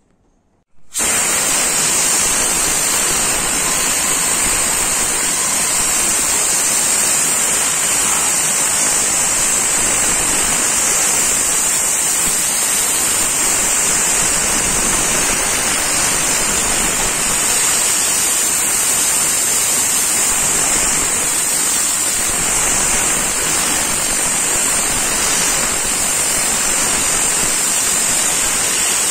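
Compressed air hissing steadily through a pneumatic interior cleaning gun as it sprays cleaning solution from its bottle into a carpet car floor mat. The hiss starts abruptly about a second in and holds even throughout.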